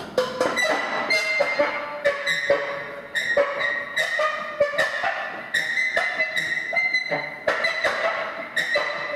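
A quick, irregular run of ringing pitched strikes, several a second, each note holding clear steady tones for a moment before the next hit.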